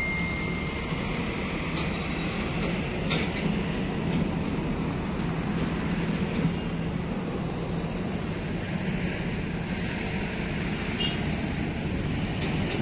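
Tractor diesel engines running steadily, a low, even drone with a few faint clicks. A high bell-like ding dies away in the first second.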